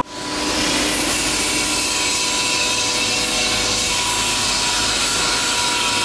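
Vertical CNC alloy wheel lathe cutting the face of a powder-coated aluminium alloy wheel for a diamond-cut finish: a steady, hissing scrape that fades in over the first half-second.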